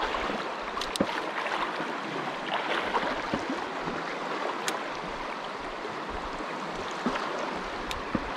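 Shallow, fast-flowing river water rushing steadily around a wading angler, with a few sharp clicks about a second in, in the middle and near the end.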